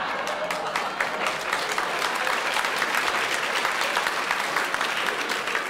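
Theatre audience applauding: many hands clapping at once in a steady, dense patter.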